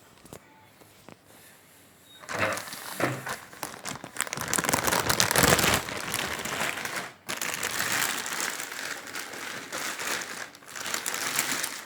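Rustling, crinkling noise that starts about two seconds in, irregular and loudest around the middle, with a brief break near seven seconds.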